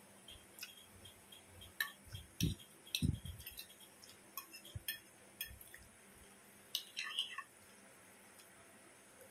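Metal fork clinking and scraping against a plate as noodles are twirled and lifted, a scatter of light sharp clinks with a quick cluster about seven seconds in. Two soft low mouth sounds of eating, chewing and slurping noodles, come between two and three seconds in and are the loudest things heard.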